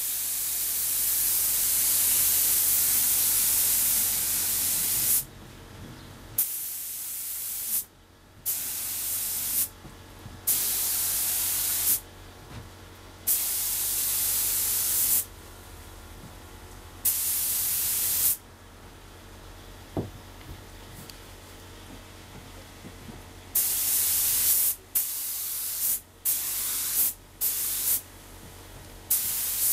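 Compressed-air spray gun spraying finish, its air hissing in bursts that start and stop sharply as the trigger is pulled and released: one long pass of about five seconds at the start, several one-to-two-second passes, then a quick run of short bursts near the end.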